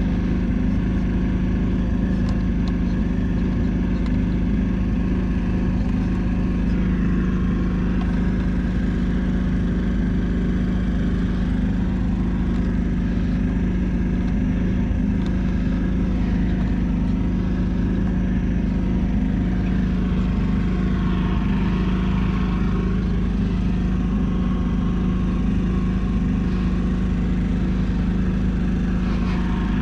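John Deere 450C crawler dozer's diesel engine running steadily at an even speed.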